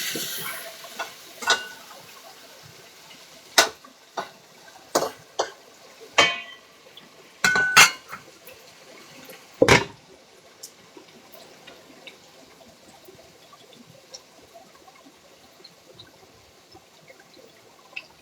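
Kitchen clatter: about a dozen separate clinks and clanks of pots, dishes and utensils, some ringing briefly, with the loudest clank about ten seconds in. The last of a frying sizzle fades out at the very start, and the second half is quieter.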